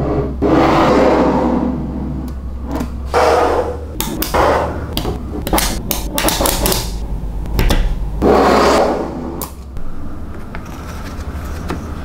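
Small magnetic balls rattling and scraping together as they are handled, with sharp clicks as balls snap into place, over a steady low hum.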